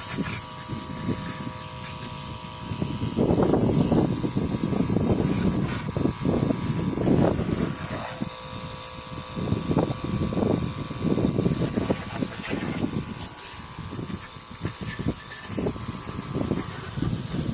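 Homemade pressure washer's electric motor pump humming steadily, with its water jet spraying against a motorcycle in uneven, swelling bursts.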